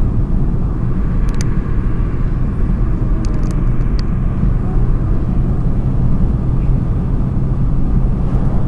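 Steady road and engine rumble of a car cruising at highway speed, heard inside the cabin, with a few faint ticks about one and a half to four seconds in.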